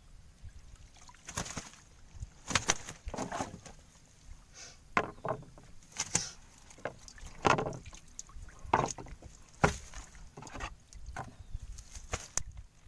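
A net full of waterweed being hauled over the side of a wooden canoe: irregular knocks against the wooden hull mixed with splashing and sloshing water.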